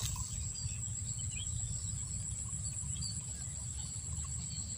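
Outdoor insect ambience: a steady high-pitched whine with a few faint, scattered bird chirps, over a low steady rumble.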